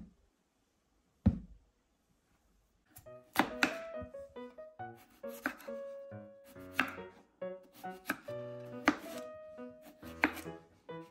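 Chef's knife cutting through raw potato and striking a bamboo cutting board: single sharp chops about once a second, over soft piano music. A dull thump comes about a second in, before the chopping starts.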